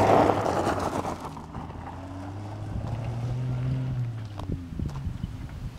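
Rover P4 110 straight-six engine and tyres on dirt as the car passes close by and pulls away, the noise falling off over the first couple of seconds. The engine note swells briefly again about three to four seconds in as the car drives off, with a few faint clicks near the end.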